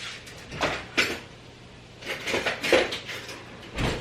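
Kitchen utensils and dishes being handled: a handful of separate clinks and knocks, with a duller low thud near the end.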